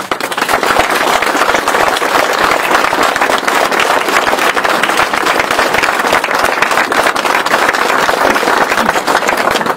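Audience applause: dense, steady clapping from many hands that breaks out at once as a speech ends.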